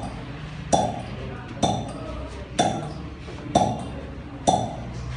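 Five evenly spaced clinks about a second apart, each a sharp strike with a short metallic ring.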